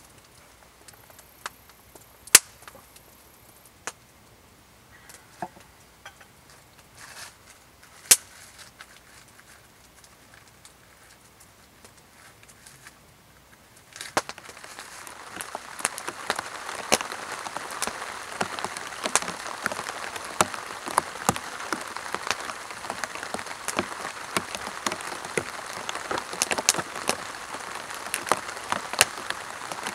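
A wood campfire crackling with scattered sharp pops. About halfway through, rain takes over, drumming on a tarp shelter roof: a steady hiss thick with the ticks of single drops.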